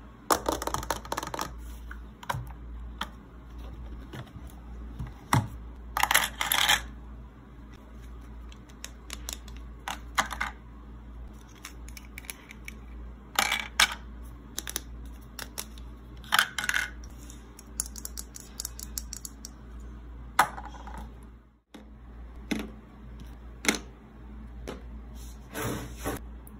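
Hard plastic clicking and clattering at irregular intervals as a Bentgo kids' lunch box is handled and opened and miniature toy food pieces are set into its compartments. There is a brief dropout about four-fifths of the way through, then more light plastic clicks from a toy kitchen set.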